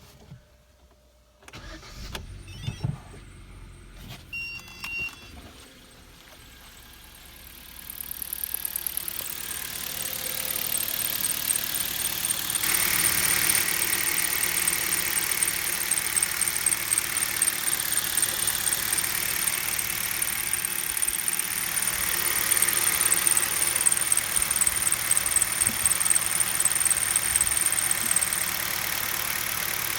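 Car engine starting and then idling, with a high-pitched, wavering squeak from the accessory drive belt that sets in as the engine catches and stops near the end. A start-up belt squeak of the kind blamed on the tensioner or idler pulley, which may in fact come from the belt itself.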